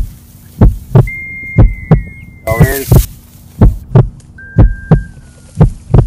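Heartbeat sound effect: a steady double thump, about one beat a second, over a low hum. A few thin, held high tones dip in pitch as they end, and a brief rushing burst comes about two and a half seconds in.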